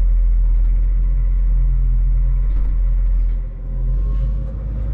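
Volvo L60E wheel loader's diesel engine running steadily at idle, heard from inside the cab, with a short dip in level about three and a half seconds in.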